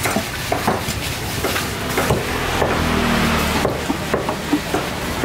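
Cleaver chopping a skin-on barracuda fillet into pieces on a thick wooden block: a run of irregular sharp knocks as the blade strikes the wood.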